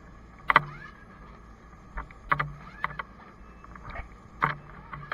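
Gear knocking and clanking against a fire engine's body and compartments: about six sharp knocks, each with a short ring, the loudest about half a second in, over a steady hum.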